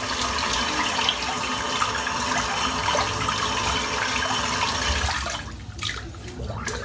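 Water running from a tap into a sink, a steady splashing flow that is turned off about five seconds in, followed by a few light knocks.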